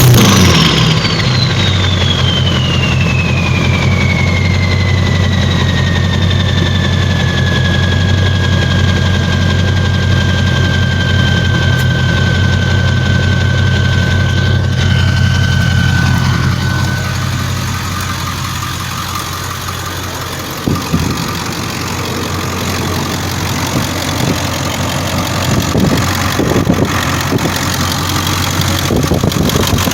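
7.3 Power Stroke diesel with a stage 2 KC 300X turbo idling after a rev, its turbo whistle winding down: the whistle drops steeply in pitch over the first few seconds, then holds a lower note and fades out. A short knock sounds about two-thirds of the way through while the diesel keeps idling.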